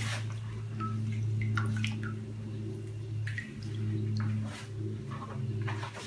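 Indigo dye dripping and splashing back into the vat as gloved hands squeeze out a string-tied silk bundle, in scattered small splashes over a steady low hum.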